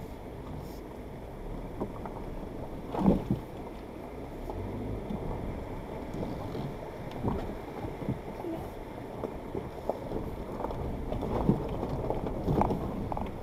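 Suzuki Jimny crawling slowly over a rocky riverbed and through shallow water. There is a low, steady rumble of engine and tyres, with scattered knocks and thumps as it rolls over stones; the loudest comes about three seconds in.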